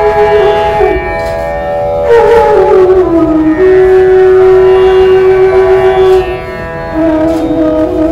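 Bansuri (bamboo side-blown flute) playing a slow Indian-classical melody over a steady drone. The flute glides down in pitch about two seconds in, holds one long note for a few seconds, then moves to lower notes near the end.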